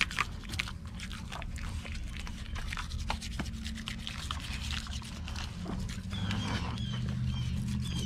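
Toothbrush scrubbing a dog's teeth: quick, uneven scratchy strokes and wet mouth clicks as the dog licks and mouths the brush, over a steady low hum.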